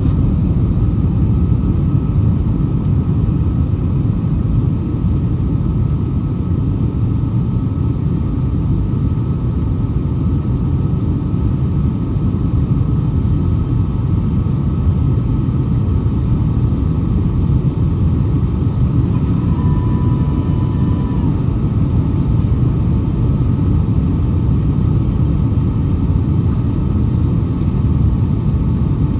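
Steady low rumble of engine and airflow noise inside the cabin of a Boeing 757-200 airliner in flight, with a brief single tone about twenty seconds in.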